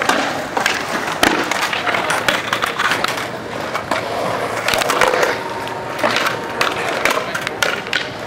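Skateboard wheels rolling over concrete, with many sharp clacks and knocks of boards striking the ground. More than one board is riding at once.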